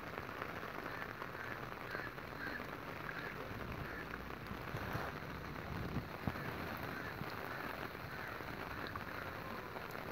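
Steady rain falling onto standing floodwater and wet ground, with a few faint separate drop ticks.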